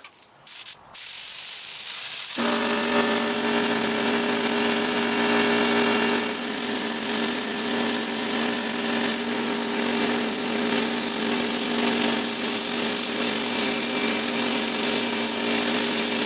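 Air spray gun hissing steadily as it sprays glue onto a fiberglass (Filon) panel, with a steady mechanical hum joining about two seconds in.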